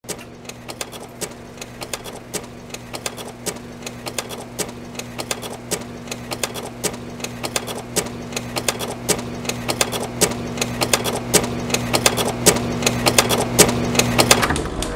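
A steady low electrical-sounding hum overlaid by irregular sharp clicks that grow denser and louder. Both stop abruptly about half a second before the end.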